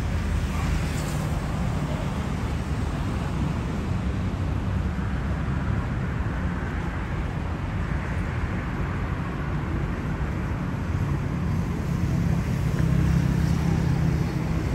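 Steady city road traffic at rush hour, a continuous rumble of engines and tyres that grows a little louder near the end.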